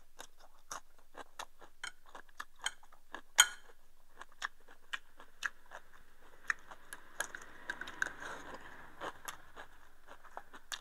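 Eating at the table: chopsticks clicking against a ceramic rice bowl and a clay pot, with chewing. The clicks come irregularly, one louder about three and a half seconds in.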